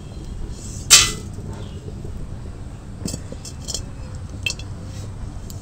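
Metal cookware clinking as the dry-roasted whole spices are taken off the kadai: one sharp, ringing clink about a second in, then a few lighter clicks.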